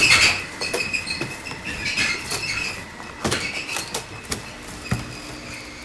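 Packaging being pulled off a fuel tank: squeaky, scratchy handling noises with several sharp knocks, the loudest at the very start.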